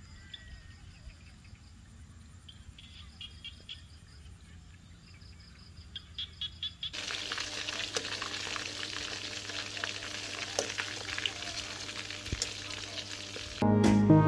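Chicken pieces frying in hot oil in a wok: a steady sizzle with scattered crackling pops, starting suddenly about halfway through. Before it, faint repeated chirping calls over quiet outdoor ambience; music comes in just before the end.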